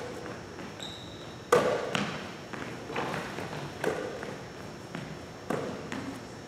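Basketball thuds in an echoing gym, as the ball is passed, caught and shot. The sharp hits are loudest about a second and a half in and come again roughly every second, each ringing briefly in the hall. There is a short high sneaker squeak just under a second in.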